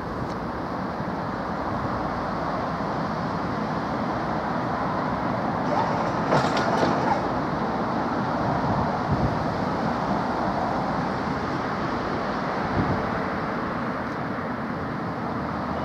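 Class 377 Electrostar electric multiple unit running past: a steady rumble of wheels on rail and running gear, with a cluster of sharp clicks about six to seven seconds in.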